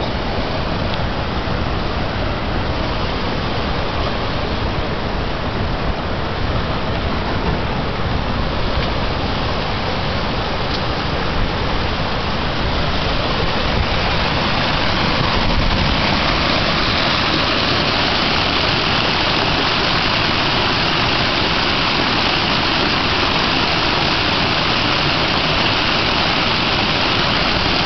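Floodwater gushing up out of an overwhelmed storm sewer, a steady rush of water. It grows louder and hissier about halfway through.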